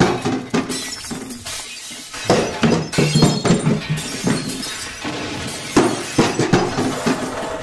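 Glass crashing and shattering in several loud clattering clusters, over background music.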